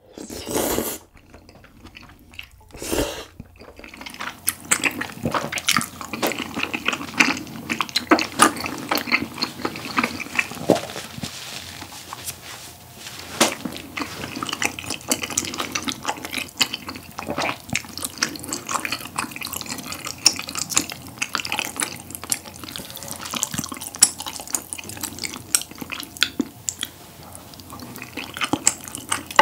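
A person slurping up spicy tteokbokki rice cakes and ramen noodles, two strong slurps in the first few seconds, then a long run of wet, close-miked chewing and lip smacking full of small clicks.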